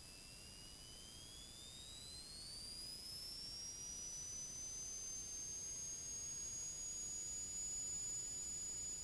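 Faint, thin high-pitched whine that rises steadily in pitch over the first few seconds and then holds steady. It tracks the RV-7A's 3.0 L fuel-injected Subaru engine and gearbox coming up to full takeoff power on the takeoff roll; the engine's own roar is barely there.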